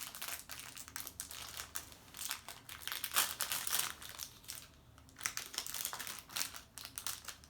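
Crinkly wrapper of a toy surprise packet rustling and crackling in irregular bursts as it is handled and unwrapped by hand.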